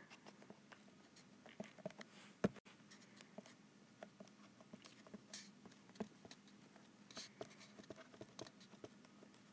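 Faint, irregular taps and light scratches of a stylus handwriting on an iPad's glass screen.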